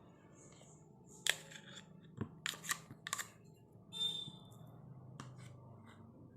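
A few light clicks and taps of kitchen utensils being handled while butter is added to a mixing bowl, with a short scrape about four seconds in, over a faint steady hum.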